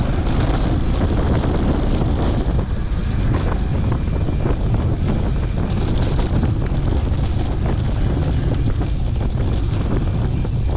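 Wind buffeting an action camera's microphone: a steady, loud low rumble with hiss above it.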